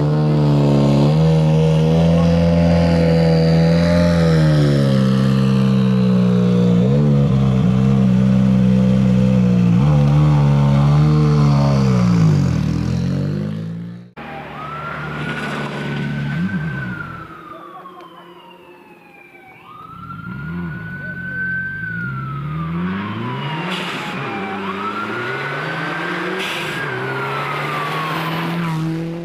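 Ford Puma Rally1 rally car's turbocharged four-cylinder engine running steadily at a fast idle, dipping and picking up again near the end. After a cut, a rally course car's siren wails three times, each wail rising then slowly falling, over the engine of the approaching car.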